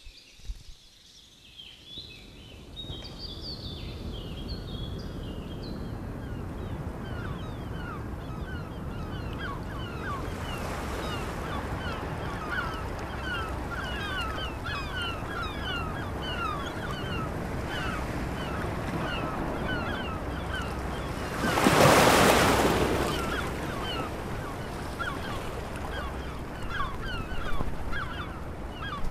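A flock of birds calls continuously, a dense chatter of short, downward-slurred high calls, over a steady wash of surf. About three quarters of the way through, a brief, much louder rush of surf swells up and dies away.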